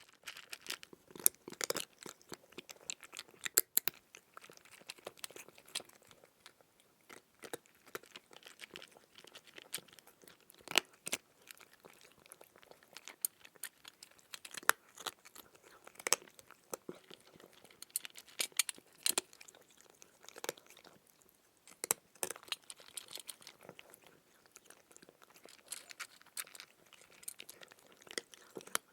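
Close-up chewing and crunching of crisp food, a run of irregular sharp crunches with short pauses between bites.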